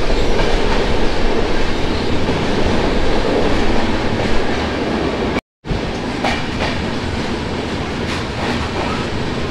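Passenger train coaches running through a concrete tunnel, heard from an open door: a loud, steady rumble of wheels on rail, with a few sharp wheel clicks in the second half. The sound cuts out completely for a moment about five and a half seconds in.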